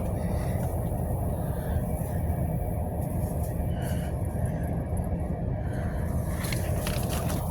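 Steady low rumble, with a few faint clicks near the end.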